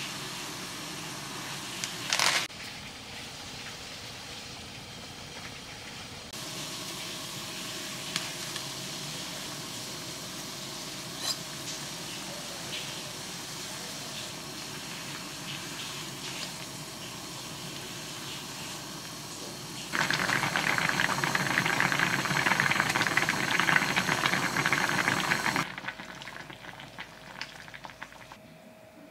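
Ramen broth with soft tofu boiling in a cast-iron pan over a gas burner: a steady bubbling hiss, with a short knock about two seconds in. For about six seconds near the end it bubbles much louder and harder.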